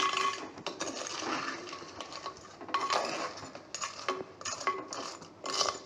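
A steel spoon scraping and clinking against the inside of a clay cooking pot, stirring crab pieces in a wet masala, with repeated strokes, some of them ringing briefly.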